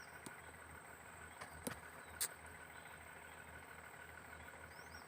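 Faint steady background hum with a thin high-pitched whine, and two short clicks about half a second apart a little under two seconds in.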